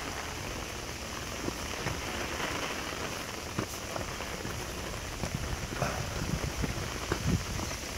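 Steady rain falling on dense foliage, an even hiss, with a few faint scattered taps and rustles.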